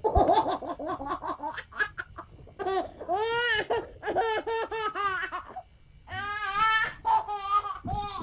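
A young child laughing in high-pitched runs, with a longer stretch of laughter about three seconds in and another around six seconds in.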